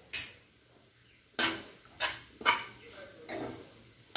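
Steel spoon stirring grated coconut and chopped onion in a frying pan: about five short scraping strokes, half a second to a second apart.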